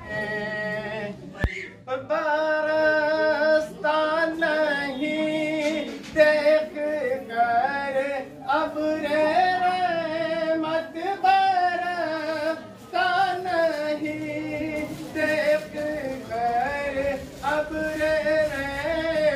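A solo voice singing a slow melody in long, wavering held notes, with no beat. There is a single sharp click about a second and a half in.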